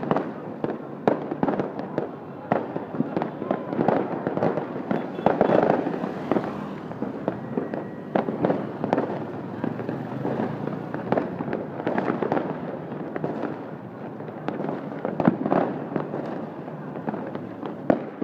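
Fireworks going off in quick, irregular succession: many sharp bangs and crackles, several a second, with no pause.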